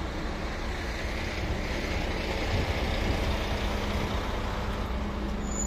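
Tour coach running: a steady low engine rumble with road noise, and a brief high-pitched tone near the end.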